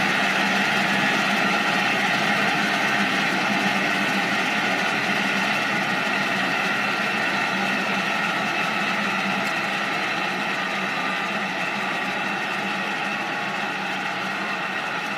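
1950s Budworth jet engine running steadily: a constant whine over a rushing hiss, gradually getting quieter.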